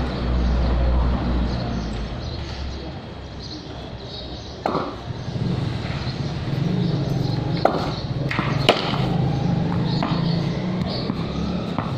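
A few sharp knocks of a tennis ball and bat in a backyard cricket game on stone paving, the loudest about nine seconds in, after a low rumble in the first few seconds.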